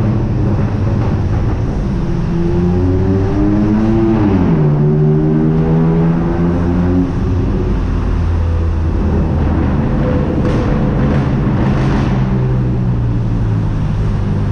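Car engine accelerating hard, its pitch climbing then dropping sharply at a gear change about four seconds in, then running steady at lower revs.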